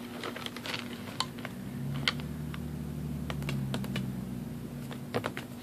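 Fingertips and nails tapping lightly on a cardboard box and the paper packet on its lid: irregular, sharp little taps, keyboard-like, over a low steady hum.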